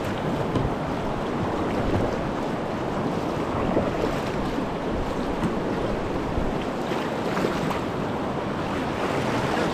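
Steady rush of whitewater from a river rapid.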